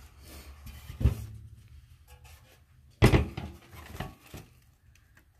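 A metal decorative pickup-truck planter handled on a tabletop: a soft knock about a second in, then a loud thump about three seconds in and a few lighter knocks as it is turned over.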